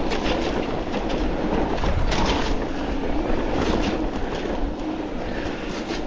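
Mountain bike riding over a wet gravel trail: tyres crunching and hissing on the wet stones, with the bike rattling over the bumps.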